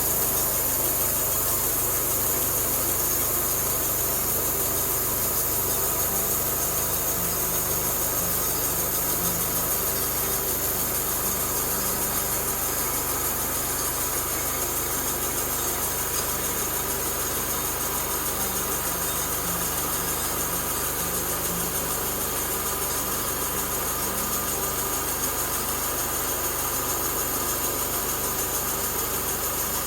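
Homemade sawmill's small gasoline engine running steadily at an even speed, with a constant high hiss over it.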